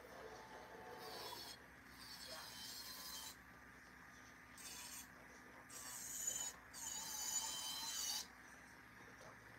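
Acrylic nail being filed, a scratchy rasping in short stretches that stop and start several times, loudest near the end.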